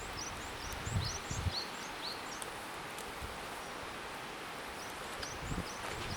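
Small birds chirping in quick clusters of short high notes over a steady outdoor rush, with wind buffeting the microphone a few times in low thumps and a few faint crackles.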